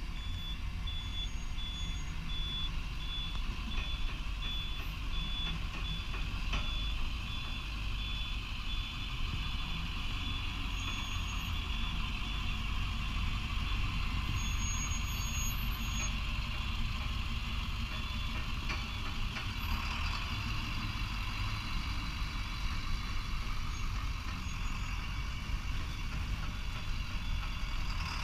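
A large vehicle's engine running steadily with a reversing beeper sounding a quick, high repeating beep, which fades out about halfway through.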